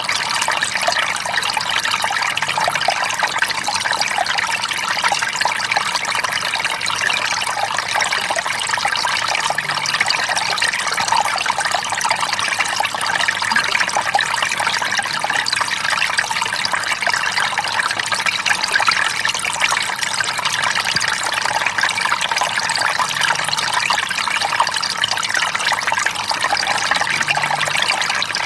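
Tiny waterfall: water falling with gentle splashes, a steady, even rush that keeps up without a break.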